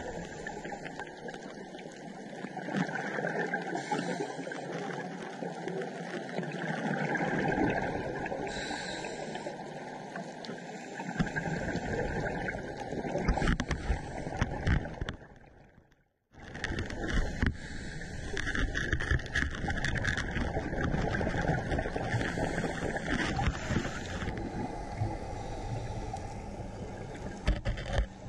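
Underwater noise picked up by a GoPro in its housing: a steady rushing hiss with fine crackling, cutting out for a moment a little past halfway.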